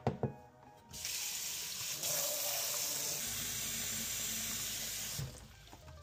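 Tap water running into a robot mop base station's clean water tank: the tap is turned on about a second in, runs steadily, and is shut off about five seconds in. A brief knock comes just before the water starts.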